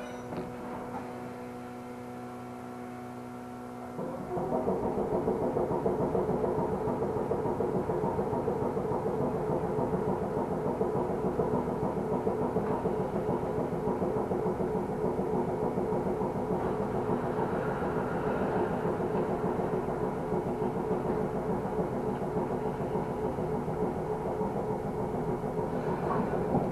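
Fukui Railway Fukubu Line electric train heard from inside the car: a steady hum with several held tones. About four seconds in it suddenly gets louder and stays loud, with motor hum and rail noise as the train runs.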